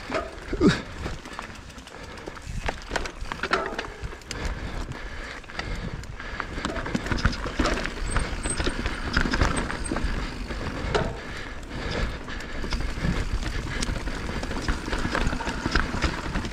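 Mountain bike descending a loose dirt trail: tyres rolling and scrabbling over dirt and stones, chain and frame rattling with many sharp knocks, and wind rumbling on the camera microphone.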